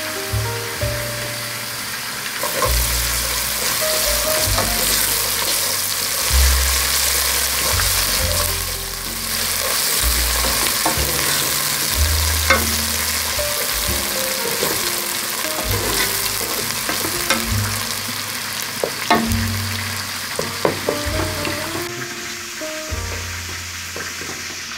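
Chopped onions and tomato paste sizzling in hot oil in a nonstick pot while being stirred with a spatula, which clicks against the pot now and then. The sizzle grows louder about two and a half seconds in.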